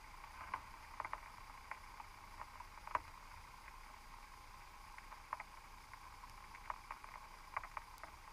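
Underwater ambience picked up through a GoPro's underwater housing inside a submerged crab pot: a steady faint hiss with a dozen or so faint, irregularly spaced clicks and ticks, the loudest about three seconds in.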